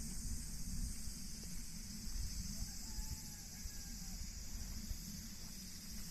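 Steady high-pitched chirring of summer insects over a continuous low rumble, with a faint wavering tone about three seconds in.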